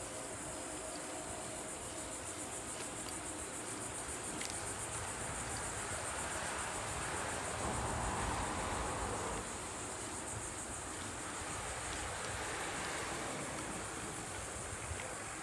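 Steady high-pitched drone of insects in the trees, heard from a moving bicycle, with rolling tyre and wind noise underneath that swells for a few seconds midway.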